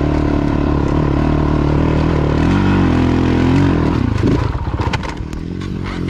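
Honda CRF450L dual-sport motorcycle's single-cylinder engine running under load on a rocky dirt climb, its pitch dipping and rising about halfway. Near the end the engine eases off and the bike clatters and scrapes over loose rock.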